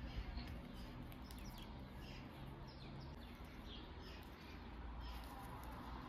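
Small birds chirping now and then, short falling chirps, over a low steady hum of background noise.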